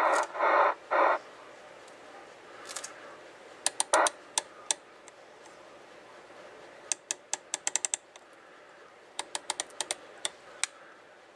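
Channel selector knob of a Kenwood TR-7500 2 m FM transceiver being turned, its rotary switch clicking through the detents in quick runs of clicks. In the first second, a few short bursts of static hiss from the radio's speaker.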